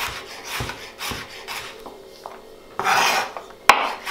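Chef's knife slicing a carrot into thin julienne sticks on a plastic cutting board, a cut about every half second. A longer, louder rasping stroke about three seconds in, then a sharp knock of the blade on the board, the loudest sound here.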